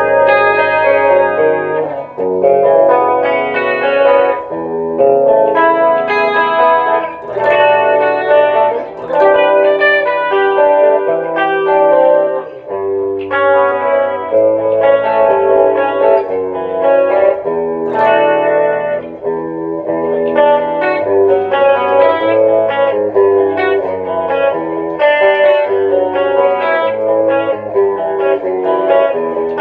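Electric guitar played through a Gallien-Krueger 250RL amp head on its clean channel, with compression and stereo chorus on: a continuous passage of chords and picked notes, changing every second or so.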